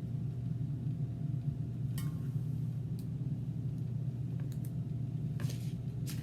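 A steady low hum with a few faint light clicks and short rustles of small objects being handled.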